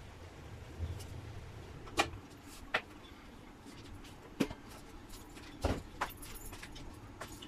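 A handful of sharp metal clinks and knocks, spread unevenly, as greens are stirred in a wok and the wok's lid is set back on.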